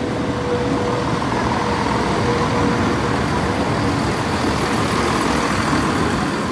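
East Midlands Railway Class 170 Turbostar diesel multiple unit passing close by over the level crossing: its underfloor diesel engines run and its wheels rumble steadily on the rails. A steady tone heard at first fades out about three seconds in.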